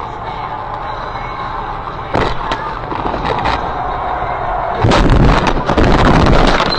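Car crash heard from inside the car: steady road noise, a few sharp knocks about two seconds in, then from about five seconds in a loud, dense run of bangs and crunches as the car goes off the road.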